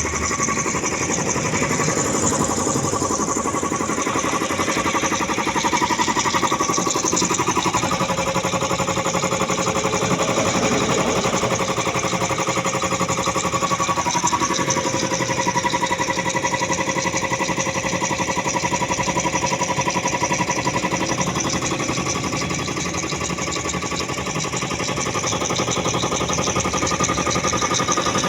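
Puma 2090 air compressor running steadily under test, its pump making a rapid, even pulsing.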